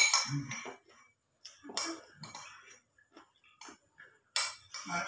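Spoon clinking and scraping against a plate several times at irregular intervals while a person eats, with chewing sounds between the strokes.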